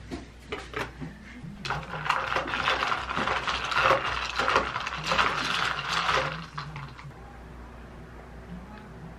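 Ice cubes rattling and clinking inside a plastic cold cup as a straw stirs an iced americano, a dense run of clicks lasting about five seconds. A few separate light knocks come first, and the rattling stops about seven seconds in.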